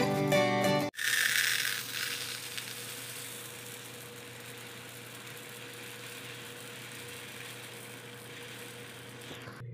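Dry tapioca pearls being handled, a soft granular hiss that is loudest about a second in and then settles to a steady faint hiss, over a steady low hum.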